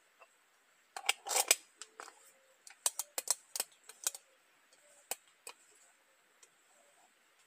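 Metal clinking and scraping of an aluminium stovetop moka pot being handled and twisted apart or together by hand: a burst of clatter about a second in, then a run of single sharp clicks.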